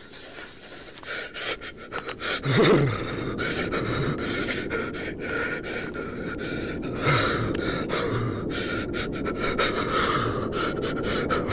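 A man shivering from the cold: shaky, gasping breaths, strongest about two and a half and seven seconds in, over a steady wind, with scattered sharp clicks.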